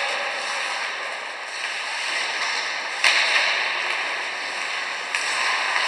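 Ice hockey play in an arena: a steady hiss of skates and rink noise, with a sharp crack about three seconds in and another near five seconds.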